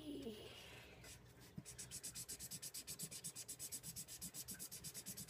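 Felt-tip marker scribbling quickly back and forth on paper, colouring in a small drawn heart. The strokes are faint and even, about nine a second, and start about a second in.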